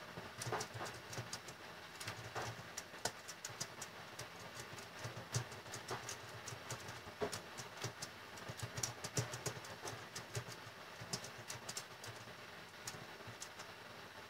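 Typing on a computer keyboard: quick, irregular key clicks coming in short runs with brief pauses between them.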